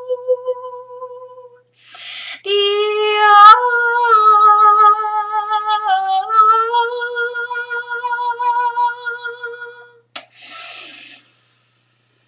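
A woman's voice toning in long held vowel tones: the first tone fades out, then after an in-breath comes one long sustained tone that steps down and back up in pitch for about seven seconds. It ends with a small click and a breath, then silence.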